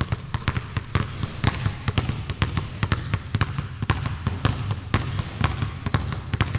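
Two basketballs dribbled at once on a hardwood gym floor: a quick, uneven patter of bounces, about five a second.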